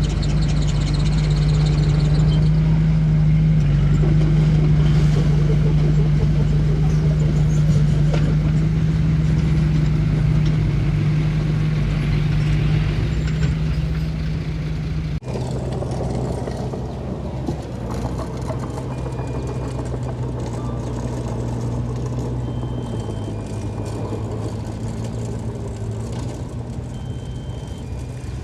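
Heavy diesel construction machinery running steadily at a dirt fill site. About halfway through the sound cuts abruptly to a second machine with a slightly lower engine note, and a few short faint beeps are heard over it.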